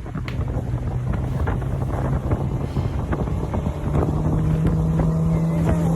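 Aircraft engine drone heard from inside the cockpit, with wind rushing over the airframe. The engine's pitch steps up about four seconds in and then holds steady.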